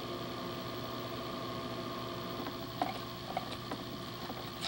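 Index cards being flipped through in a small card-file box: a scatter of light clicks and ticks starting about two and a half seconds in. A steady hum runs underneath.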